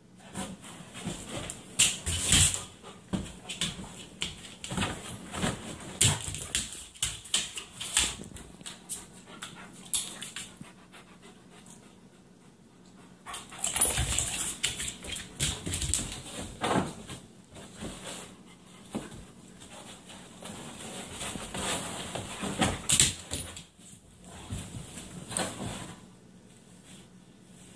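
Two Great Pyrenees playing rough: short dog noises and scuffling come in irregular bursts, with three louder bouts, a couple of seconds in, around the middle and a few seconds before the end.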